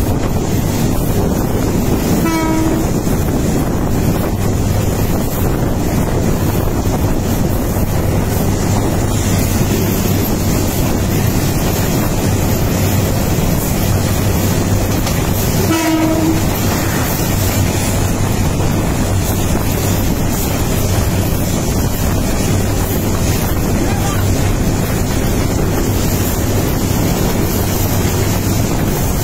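An intercity express train passing close alongside, its coaches making a loud, steady rolling rumble on the rails. A train horn sounds briefly twice, about two seconds in and again about sixteen seconds in.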